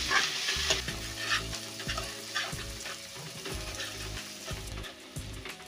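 Chopped onions sizzling in hot oil in a steel kadhai while being sautéed to brown. A steel spoon stirs them, scraping and tapping against the pan again and again. The sizzle gradually dies down.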